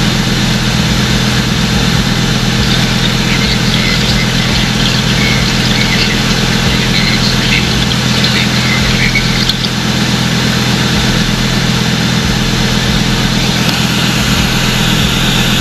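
Twin-turbo Lamborghini Huracán Performante's V10 engine idling steadily.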